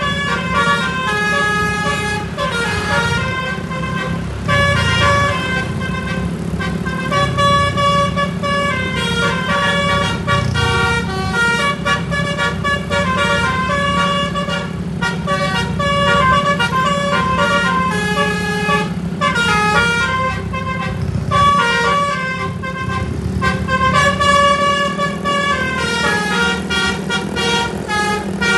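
SJM Trans bus's basuri telolet horn playing a tune: a long string of stepped horn notes running up and down in pitch, over the steady hum of the bus engine.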